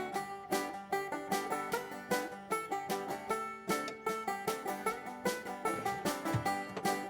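Background music: a bluegrass-style tune led by a fast-picked banjo, with a steady plucked rhythm.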